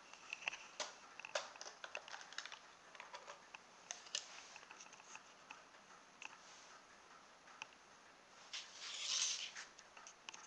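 Light plastic clicks and taps as a toy RC car's plastic chassis is handled and its battery cover is taken off, most of them in the first few seconds, with a short scraping rustle about nine seconds in.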